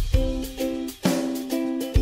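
Background music: short repeated chords in a bouncy rhythm over a steady beat.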